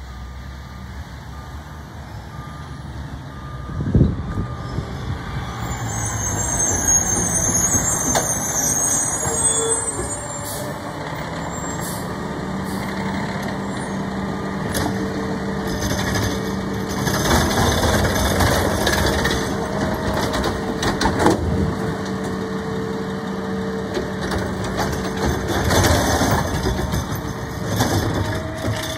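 Automated side-loader garbage truck pulling up, with a sharp thump about four seconds in and an air-brake hiss a few seconds later. Then its engine holds a steady high idle to power the hydraulic arm as it grabs, lifts and empties a wheeled trash cart, with clattering bangs as the cart is dumped and shaken out.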